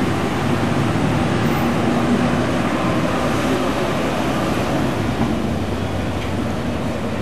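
A steady low motor drone with a constant hum over a haze of water and wind noise, holding even throughout with no clear changes.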